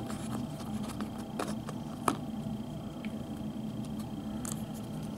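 Light clicks and taps from hands pressing Play-Doh into a plastic fruit mold, with one sharper click about two seconds in, over a steady low background hum.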